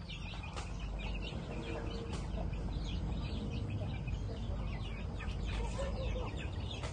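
Free-ranging chickens clucking, with many short, high chirps scattered throughout over a steady low background.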